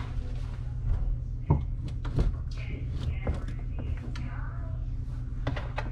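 Frigidaire dishwasher being pushed back into its cabinet opening: scattered knocks and scrapes of its metal frame sliding on the plywood floor, a few seconds apart, over a steady low hum.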